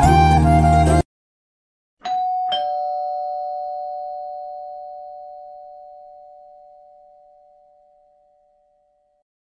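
Flute music cuts off abruptly about a second in. After a second of silence a two-note doorbell chime rings ding-dong, high then lower, and fades slowly over about seven seconds.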